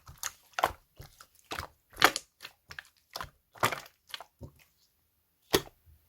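Gold-pearl slime being squeezed and pressed by hand, giving a run of short sticky crackles about two a second. After a brief pause there is one last crackle near the end.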